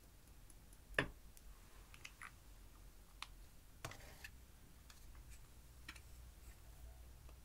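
Scattered light clicks and taps of plastic makeup cases being handled over glass dishes. The sharpest click comes about a second in, with another just before four seconds and fainter ticks between.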